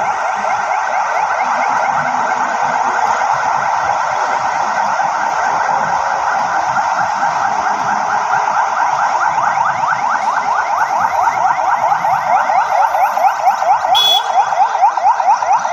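Sirens of several police patrol cars sounding together as the convoy drives past, a fast yelping siren of rapid rising sweeps repeating several times a second, with overlapping sirens running out of step. A short sharp click near the end.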